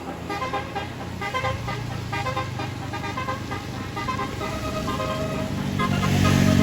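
Indonesian bus telolet horn, a multi-trumpet musical air horn, playing a quick tune of short notes over the low hum of the bus engine.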